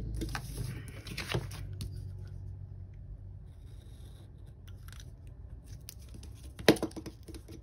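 Paper rustling and scraping from planner pages being handled while a craft knife trims a sticker's overhanging edge, busiest in the first second and a half. A single sharp click near the end.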